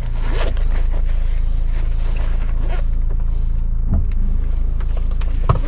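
Vehicle engine running steadily while driving, a constant low hum, with a short click near the end.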